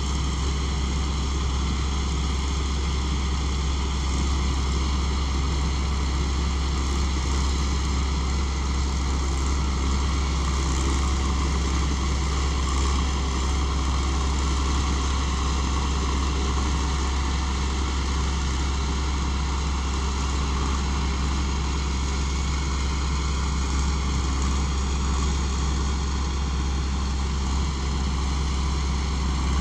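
Kaset Pattana rice combine harvester running steadily while harvesting: an even engine drone with a strong low hum that does not change.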